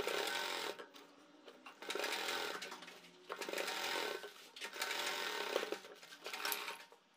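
Sewing machine stitching in about five short runs with brief stops between them, sewing a fabric patch down along its edge.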